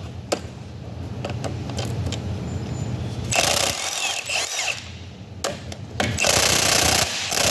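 Impact wrench hammering on the valve's small bolts in two rattling bursts, about three seconds in and again from about six seconds, without breaking the bolts loose.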